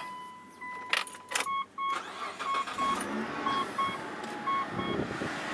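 Mitsubishi Pajero being started with the key: a couple of clicks about a second in, the dashboard warning chime beeping in short repeated pulses, then the engine catching and running. The owner suspects a worn idler pulley of making a squeak in this engine.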